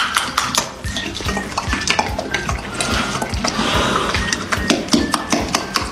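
Horse smacking its lips and working its teeth, a quick, irregular run of wet clicks and clacks.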